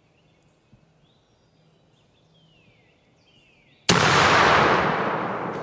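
A single shotgun blast about four seconds in, the shot that drops a wild turkey gobbler at close range; its echo fades slowly over the following seconds. Before it, faint songbird whistles.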